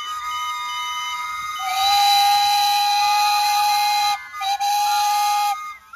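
Several steam whistles on a lineup of miniature traction engines blowing together at different pitches. A louder, lower whistle joins just under two seconds in, breaks off for a moment, and the whistles stop shortly before the end.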